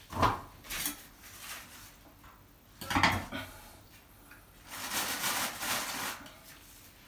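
Tile-setting tools worked in tile adhesive: a steel trowel knocking and scraping against mortar and the mortar bucket. Sharp clatters come near the start and about three seconds in, then a longer scrape of about a second and a half near the end.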